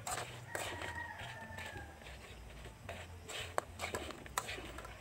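A rooster crows once about half a second in, a single held call of just over a second that falls slightly at the end. A few sharp clicks and scrapes follow as a spatula stirs banana slices in the pan.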